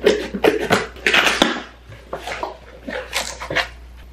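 Scissors cutting through packing tape and a cardboard shipping box being torn open: a quick, irregular run of snips, rips and rustles that dies away a little before the end.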